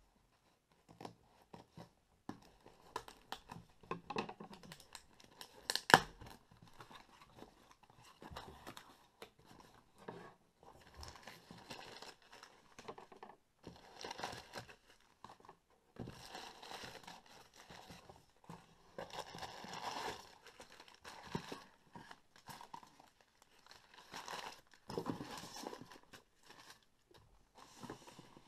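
Scissors cutting packing tape on a cardboard box, then the box flaps opening and crumpled newspaper packing rustling, crinkling and tearing as it is pulled out and unwrapped by hand. One sharp snap about six seconds in is the loudest moment.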